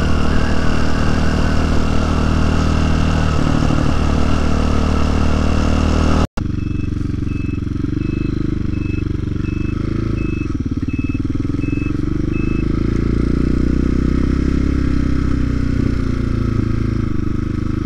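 TaoTao TBR7 motorcycle engine running at a steady low speed while riding a bumpy dirt trail, with rushing wind. The sound drops out for an instant about six seconds in. Afterwards the engine note wavers, and a faint high beep repeats about twice a second for several seconds.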